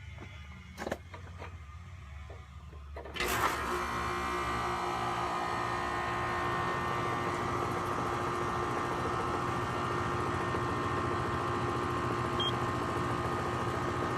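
Carrier 4-ton air-conditioner condensing unit starting up without a hard start kit: after a low hum and a few light clicks, the compressor kicks on suddenly about three seconds in with a brief surge. It then runs steadily, a loud mechanical hum with several steady tones.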